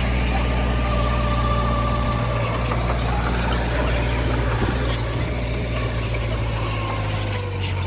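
Heavy earthmoving machine's diesel engine running steadily, with a few sharp metallic clanks about five seconds in and again near the end.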